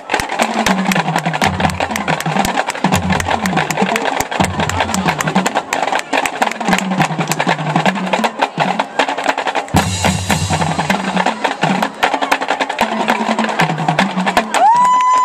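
Marching band drum line playing a fast snare-and-bass-drum passage, dense rapid strokes over pulsing low drum hits. Near the end the brass come back in on a held chord.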